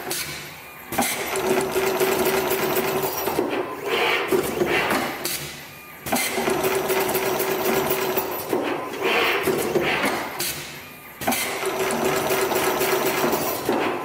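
Automatic cable core stripping and crimping machine cycling about every five seconds, three times: each cycle opens with a sharp clack, runs with a steady mechanical hum and clatter, and has a short higher burst of noise before a brief lull.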